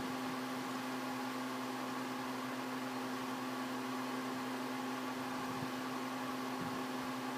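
A steady, even machine hum with a constant hiss, unchanging throughout.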